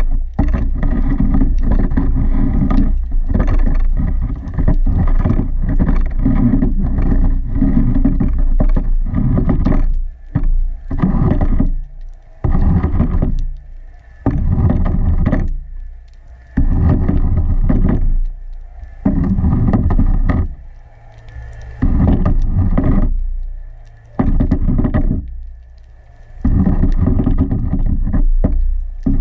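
Muffled underwater rumble through a camera's waterproof housing as the diver swims: it comes in pulses of one to two seconds, with short quiet gaps in the second half, over a faint steady hum.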